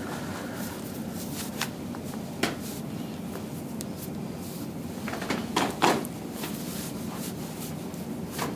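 Chiropractic adjustment sounds on a treatment table: short, sharp clicks and knocks, with a cluster of them about five to six seconds in, over a steady low hum.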